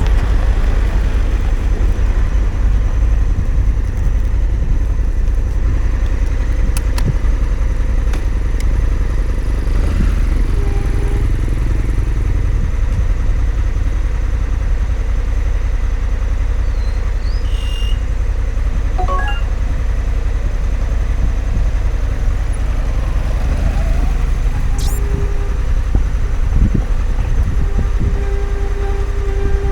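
Honda Africa Twin CRF1100L's parallel-twin engine running under way, with a heavy steady low wind rumble on the helmet or action-camera microphone. A faint steady tone comes in briefly a few times near the end.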